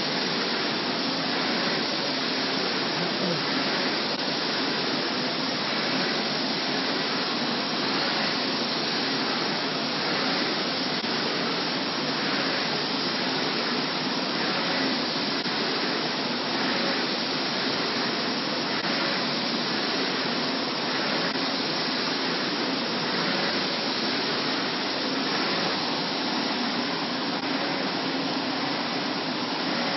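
MT LED UV flatbed printer running as it prints, a steady even hiss with faint regular pulses.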